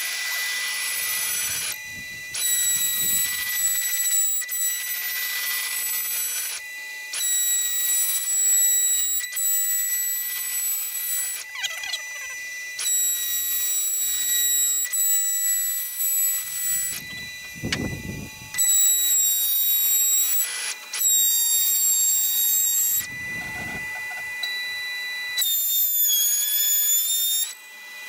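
CNC router spindle running with a steady high whine while cutting wood. The whine dips in pitch for about two seconds near the end, as if the spindle is loaded by the cut.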